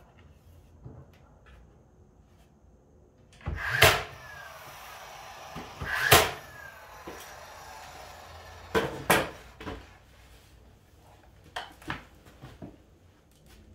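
DeWalt cordless nailer firing nails into wooden window trim: several sharp shots, the loudest about 4 and 6 seconds in and two more near 9 seconds, each early shot followed by a short falling whir. Lighter knocks come near the end.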